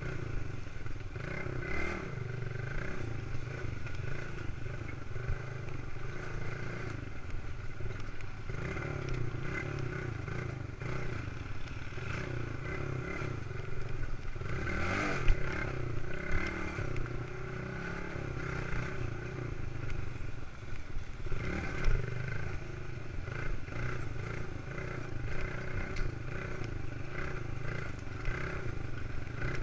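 Old Suzuki dirt bike engine running at low trail speed, with clatter and a few sharp knocks from the bike bouncing over rough ground.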